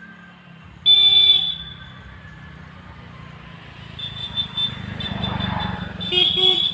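A vehicle horn honks once, loud and brief, about a second in. A vehicle then passes close by, its noise swelling and fading, and near the end a horn gives a short double beep.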